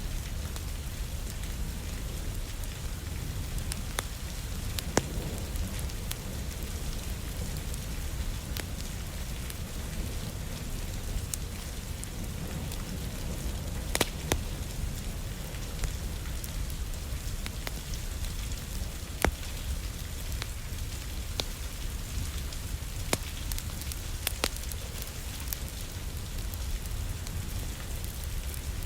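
Steady rain, with a wood fire crackling: scattered sharp pops over the even hiss, a few of them louder than the rest.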